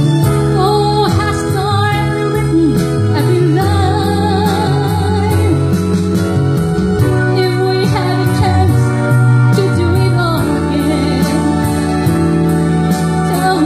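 A song playing: a sung melody over a steady beat and a bass line.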